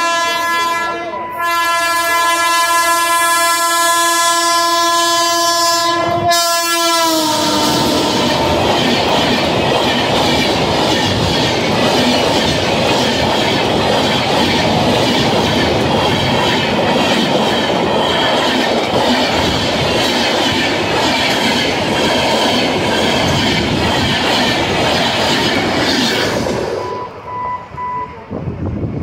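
Indian Railways express train passing a level crossing: the locomotive horn sounds in long blasts with two short breaks and drops in pitch as the engine goes by about seven seconds in. Then comes a loud, steady rush of passenger coaches and wheels passing close, which falls away near the end as the train moves off.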